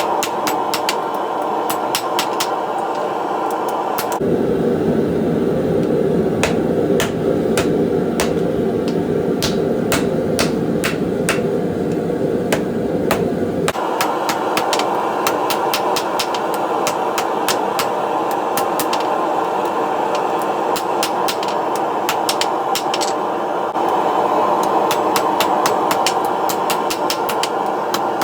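Hammer blows on hot steel at an anvil, a rasp being forged into a blade: a long run of sharp metallic strikes, one to three a second, over a steady rushing noise.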